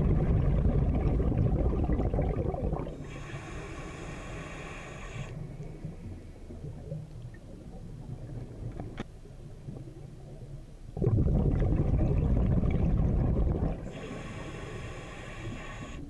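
A scuba diver breathing through a regulator underwater: twice a loud, low rush of exhaled bubbles lasting about three seconds, each followed by about two seconds of hiss from the regulator, with quieter water noise in between.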